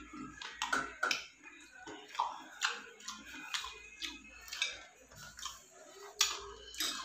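Eating noises of a person eating seblak: irregular sharp clicks and short mouth smacks, about one or two a second.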